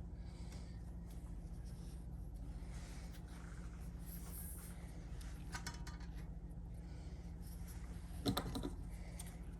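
Small clicks and rattles of something being handled, a short cluster about five and a half seconds in and a louder one a little after eight seconds, over a low steady hum.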